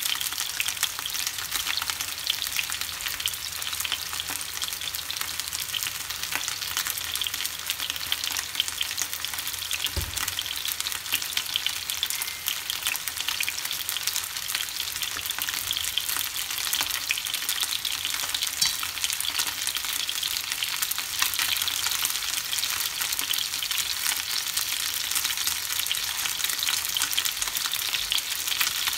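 Chicken wings frying in hot oil in a nonstick frying pan: a steady, dense crackling sizzle. A single low knock about ten seconds in.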